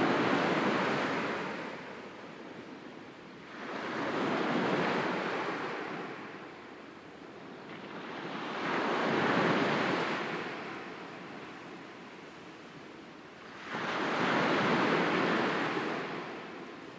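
Sea waves washing onto the shore: four swells, each rising and fading over two or three seconds, with quieter wash between them.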